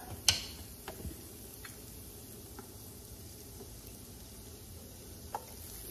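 Shallots and garlic in butter and chicken broth sizzling quietly in a pan, with a sharp click just after the start and a few faint ticks.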